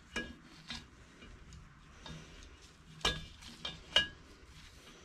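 Steel digital caliper jaws clicking and clinking against a Subaru EJ20 cylinder bore as its diameter is measured to check for out-of-round. Two light metallic clicks come near the start and three more about three to four seconds in, the last the loudest.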